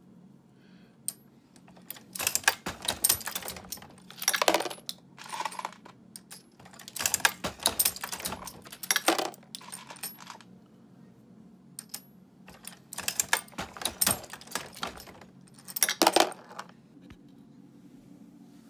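Dillon 550 progressive reloading press being cycled by hand to load 9mm Luger: repeated short bursts of metallic clanking and clinking from the press linkage, shell plate and brass cases, with a pause near the middle. A faint low steady hum runs underneath.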